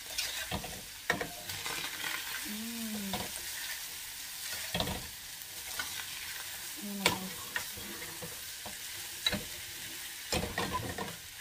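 Ground beef and onions sizzling in a stainless steel skillet over a gas burner while being stirred with a spatula, which scrapes and clicks against the pan at irregular moments.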